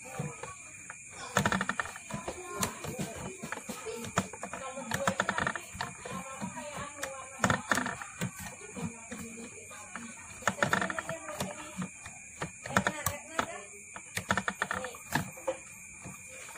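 Coil-winding rig turning as enamelled copper wire is wound onto a transformer bobbin, its mechanism giving off irregular clicking and clattering.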